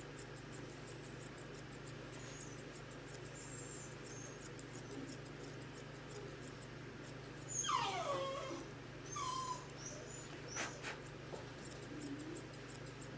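English Cocker Spaniel puppy whimpering: one high whine that falls steeply in pitch a little over halfway through, then a shorter one about a second and a half later. Faint snips of thinning shears under it.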